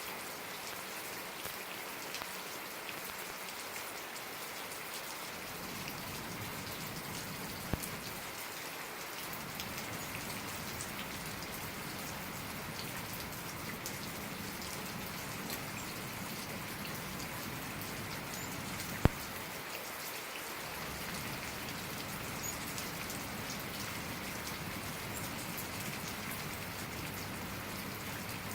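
Steady rain falling, an even hiss with a patter of individual drops, and a single sharp click about 19 seconds in.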